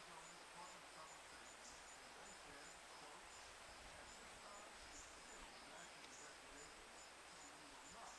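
Near silence with faint insects chirping in a steady rhythm, about two high chirps a second.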